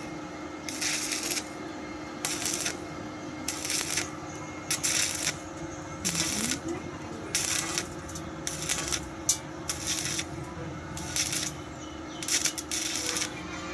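Arc welding on a pipe joint: the arc crackles and hisses in short, irregular bursts, about one or two a second, as it is struck and broken along the joint.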